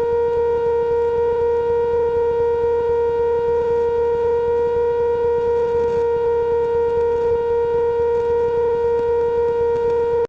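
Cessna 150's Continental O-200 engine and propeller droning steadily in the cockpit at one unchanging pitch.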